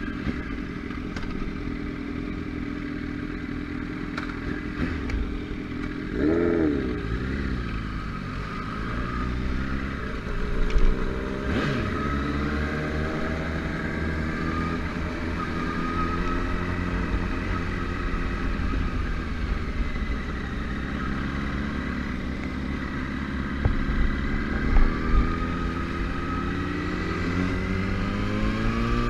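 Yamaha R1 sport bike's inline-four engine running and revving while riding. Its pitch rises and falls with throttle and gear changes, swooping sharply a couple of times and climbing again near the end.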